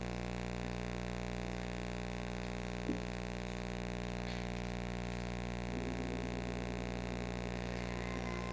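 Steady electrical hum and hiss of an old recording, with one short soft knock about three seconds in and a faint rough low sound joining around six seconds in.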